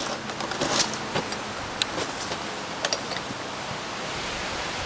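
Footsteps on bare dirt and gravel with scattered light clicks and rattles from a carpenter's tool belt and tape measure, over a steady outdoor hiss.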